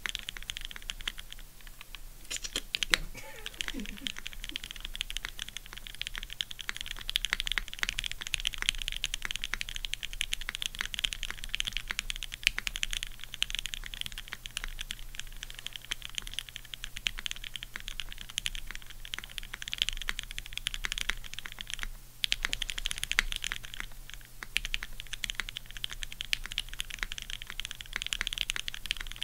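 Fast typing on a Keycult No. 2/65 custom mechanical keyboard: a dense, continuous stream of keystroke clacks, with a short pause about twenty-two seconds in.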